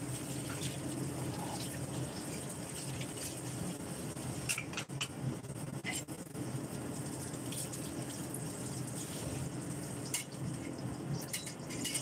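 Sliced beef and celtuce simmering in liquid under a glass lid in a steel wok on a gas burner: a steady bubbling hiss with scattered small pops and crackles.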